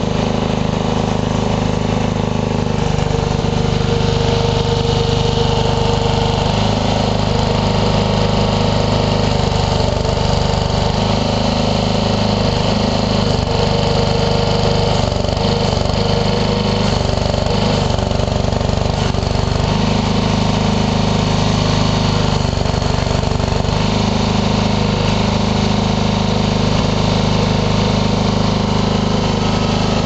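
Small tractor engine running steadily as it powers the hydraulic mini backhoe digging, its note shifting a little now and then.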